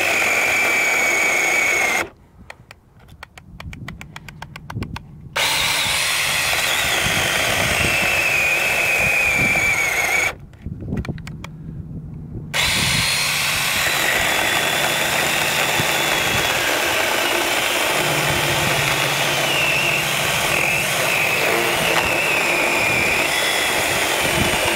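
Goxawee 4-inch mini cordless electric chainsaw cutting through a log, its motor whine sagging in pitch under load. It cuts out twice, about two seconds in and again about ten seconds in, each time going quiet for a couple of seconds before running again: the saw's internal protection shuts it off when it bogs down in the wood.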